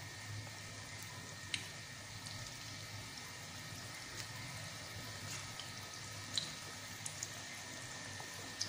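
Onion bhaji batter frying in hot oil in a kadhai: a faint steady sizzle with scattered sharp crackles and pops.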